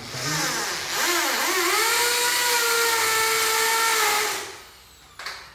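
Electric drill boring into a wall overhead. After a brief noisy start, the motor spins up with a rising whine about a second in, runs steadily for about three seconds, then stops.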